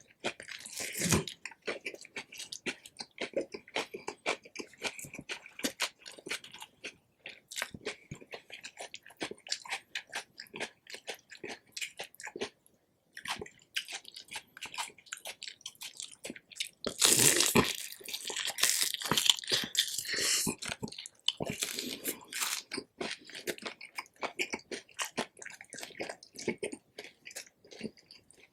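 Close-miked chewing of crispy fried pork belly, with crackling skin crunching between the teeth in quick irregular clicks. A short pause comes near the middle, and a louder run of crunching bites follows about two-thirds through.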